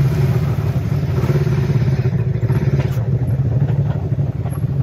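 Polaris RZR side-by-side engine running steadily as it drives along a dirt trail, with a few light rattles.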